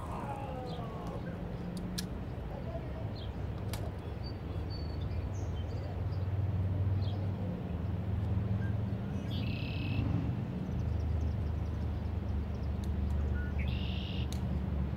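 A steady low motor drone, with two short high bird chirps about nine and fourteen seconds in.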